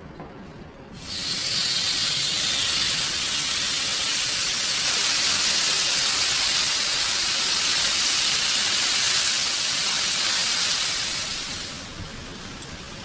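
Thin slices of marinated beef bulgogi sizzling on a hot ridged grill pan: a steady sizzle that starts suddenly about a second in and dies away near the end.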